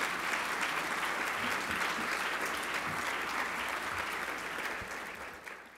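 Audience applauding, a steady patter of many hands clapping that eases off slightly near the end.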